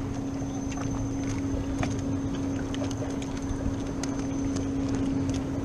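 Wind buffeting the microphone and water lapping against the hull of a small drifting fishing boat, with a steady low hum and scattered small ticks.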